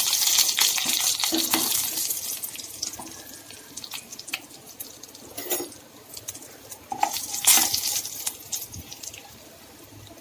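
Tempering of mustard seeds, urad dal, curry leaves, dried red chillies and asafoetida sizzling and crackling in hot oil, with scattered sharp pops. The sizzle gradually dies down.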